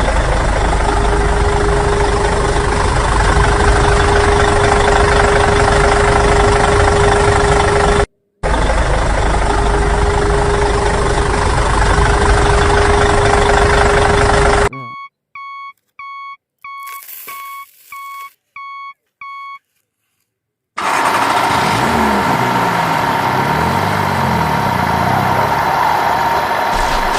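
A small machine's engine running steadily with a constant hum, cut off briefly once, then a run of about eight short electronic beeps at roughly two a second, like a reversing warning. After a short silence the engine noise starts again and runs on steadily.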